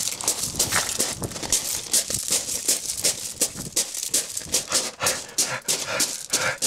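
A person panting heavily and fast, out of breath from running, each breath a short rasping stroke several times a second.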